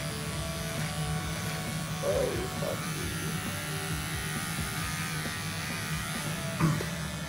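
Electric shaver buzzing steadily as it shaves a beard off around the upper lip, with a brief knock near the end.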